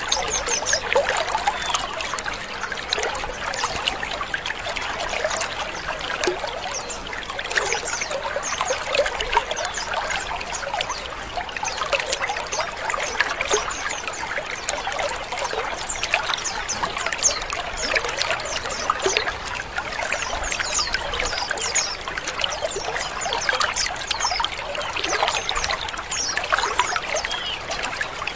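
A colony of white-eyes (pleci) calling all at once: a dense, unbroken chorus of many short, high chirps and twitters overlapping.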